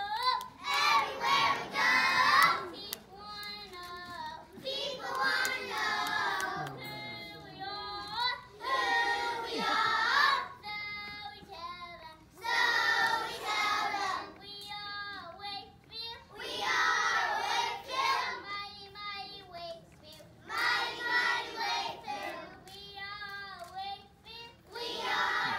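A class of preschool children chanting in unison, one child's voice leading with a line and the whole group answering. The call and answer repeats about every four seconds.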